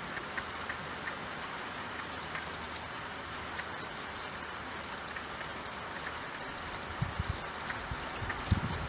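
Steady rain falling, an even hiss with scattered individual drops ticking through it. Low rumbles join in about seven seconds in.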